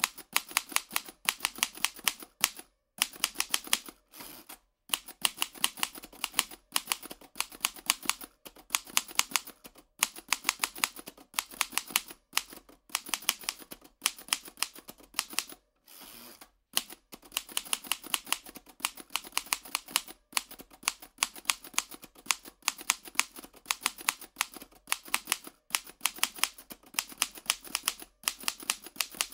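Antique typewriter being typed on: quick runs of key strikes, several a second, broken by a few short pauses.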